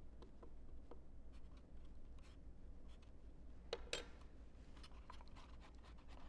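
A spoon stirring yeast and very warm water in a small cup: soft scraping and light clicks, with two sharper clicks close together about four seconds in.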